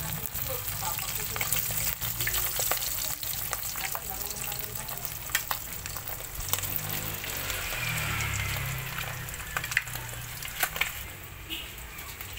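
Marinated milkfish (daing na bangus) frying in hot oil in a kawali: a steady sizzle full of sharp pops and crackles. The sizzle drops away near the end.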